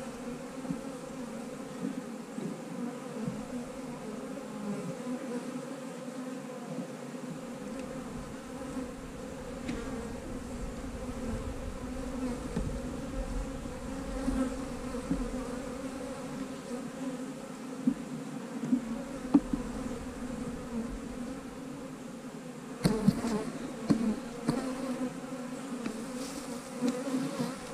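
Honey bees buzzing steadily around an opened hive box, a continuous hum. About 23 seconds in, a cluster of sharp knocks and scrapes as a wooden frame is pried loose and lifted out with a metal hive tool.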